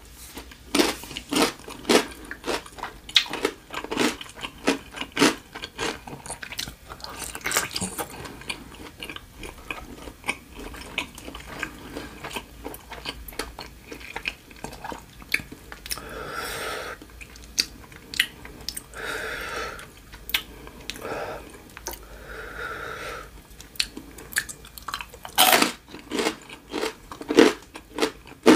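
Close-miked chewing and crunching of spicy green papaya salad with rice noodles, with irregular crisp clicks and crackles throughout and a few longer, softer mouth sounds around the middle.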